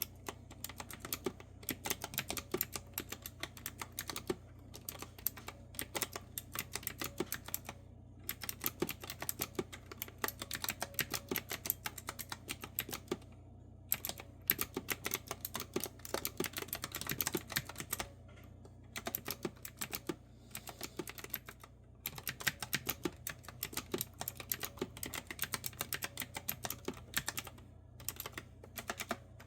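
Clicky retro-style keyboard with round keycaps being typed on steadily, fast runs of crisp keystrokes broken by short pauses every few seconds.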